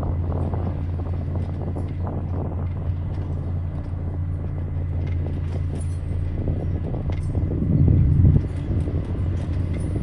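Heavy diesel engine of a Komatsu motor grader running steadily under load as it blades loose soil and rock, a low drone that swells louder about eight seconds in.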